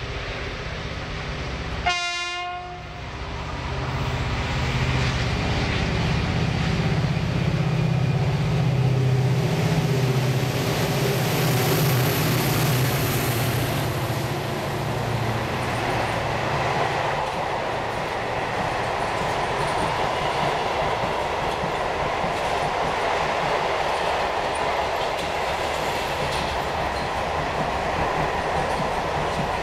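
Freight train passing through a station: one short horn blast about two seconds in, then the locomotive's low steady running sound going by, followed by the steady rolling noise of container wagons on the rails.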